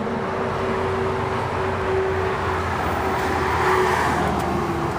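Motor-vehicle noise outdoors: a steady engine drone with a low hum, swelling as a vehicle passes about three to four seconds in.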